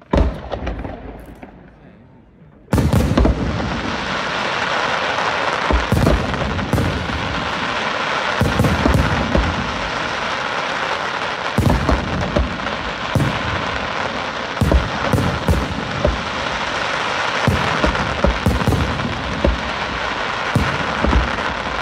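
Aerial firework shells bursting. A single loud bang at the start dies away, then from about three seconds in comes a dense, unbroken barrage of bangs over a steady rushing noise.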